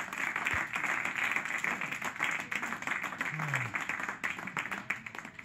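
A roomful of people applauding, a dense patter of many hands clapping at once with a few voices mixed in; the clapping thins out near the end.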